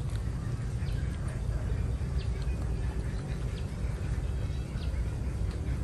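Someone chewing soft, springy agar jelly with faint wet mouth clicks, a few times, over a steady low outdoor rumble.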